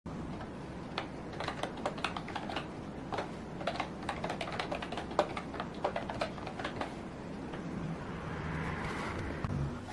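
Typing on a laptop keyboard: a run of irregular key clicks, followed near the end by a soft swelling hiss.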